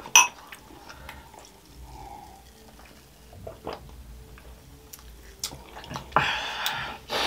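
Sharp clink of glasses touching just after a toast, followed by faint small clicks of eating and drinking at the table, and a hissing burst of noise lasting about a second near the end.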